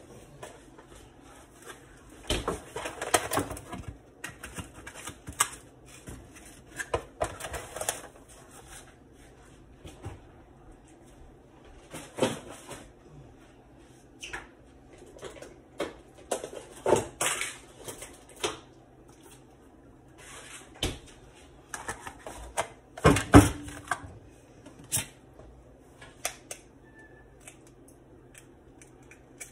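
Irregular kitchen handling noises: short clatters of objects being picked up and set down and bursts of crinkling packaging, coming in clusters with quiet gaps, the loudest about two-thirds of the way through. It is the sound of clutter and rubbish being cleared off the counter.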